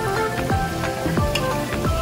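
Background music with a quick, steady drum beat under held melodic notes.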